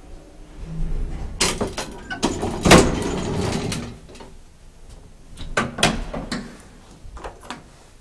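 Elevator doors being opened at a landing: a run of clatters and knocks, loudest a little under three seconds in, followed by a few more clicks around six seconds and near the end.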